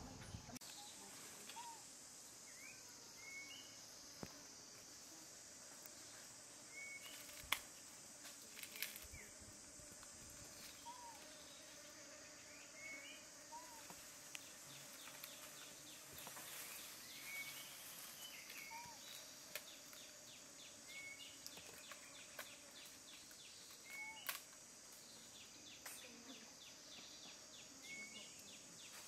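Faint wild outdoor ambience: a steady high insect drone with short rising bird chirps every second or two and a fast insect-like trill at times, broken by a few sharp clicks, the loudest about seven and a half seconds in.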